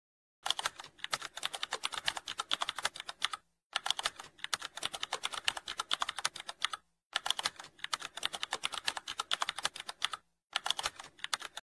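Keyboard typing sound effect: fast runs of key clicks. It starts about half a second in and comes as three runs of about three seconds each and a shorter fourth near the end, with brief pauses between.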